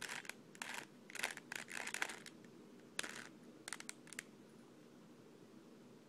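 Plastic 3x3 Rubik's cube being turned by hand: a quick run of clicking, scraping layer turns, then a sharp click and a few more short clicks.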